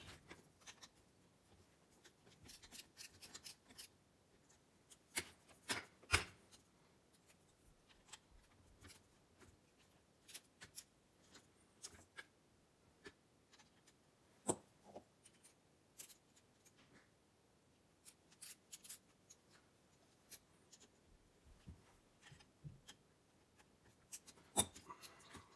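Faint, scattered clicks and light metallic taps of a screwdriver and small parts being handled on a pedal and master-cylinder assembly, with a few sharper knocks about five to six seconds in and midway through.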